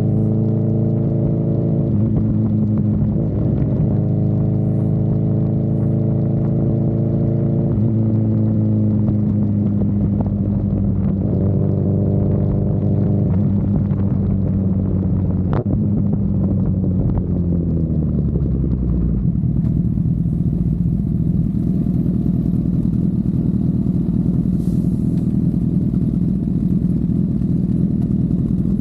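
Honda CB1000R inline-four motorcycle engine running at steady riding revs, its note shifting pitch a few times. About two-thirds of the way in the engine note falls away as the bike slows, leaving a steady low rumble.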